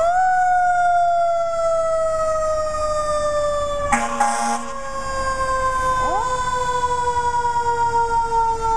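Fire apparatus siren winding up sharply, then a long wail that slowly falls in pitch. About four seconds in, a short horn blast cuts across it.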